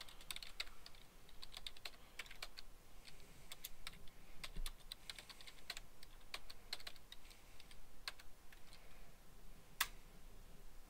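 Typing on a computer keyboard: a run of irregular key clicks, with one sharper keystroke near the end.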